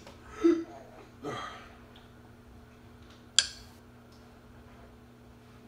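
A toddler's brief vocal sounds, two short noises in the first second and a half, then a single sharp click about three and a half seconds in. A faint steady hum lies underneath.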